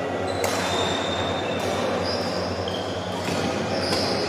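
Badminton players' court shoes squeaking on the hall floor during a rally, in short high squeals, with a sharp racket hit on the shuttlecock about half a second in and another near the end. A steady low hum runs underneath.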